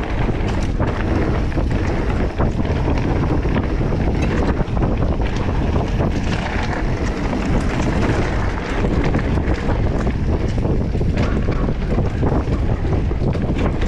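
Wind buffeting the microphone of a mountain biker riding downhill, over the steady rumble of the bike's tyres on a dirt trail, with frequent short clicks and rattles from the bike.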